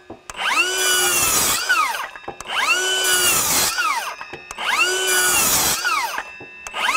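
Milwaukee M18 FUEL 6-1/2-inch brushless cordless circular saw making three quick crosscuts through a 2x6 board. Each time the motor whines up to speed, runs through the cut for about a second and a half, then winds down with a falling whine.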